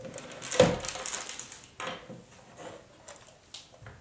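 A Cinch wire binding machine being flipped over and set down on a wooden tabletop: a loud knock about half a second in, a second knock a little over a second later, then a few lighter clicks and rattles of its parts.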